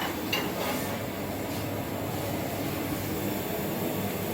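Steady fan and air hum with no clear breaks, the kind of sound that runs under the whole lab demonstration.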